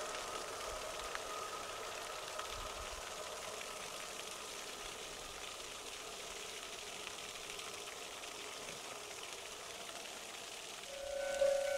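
Steady hiss with a faint whine dying away over the first few seconds; about a second before the end, a railway level-crossing alarm starts ringing with a repeating bell-like tone.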